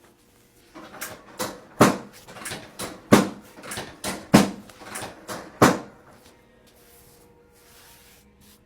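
Chiropractic adjustment of a patient lying face down: about a dozen sharp knocks and cracks in quick succession over some five seconds, four of them much louder than the rest.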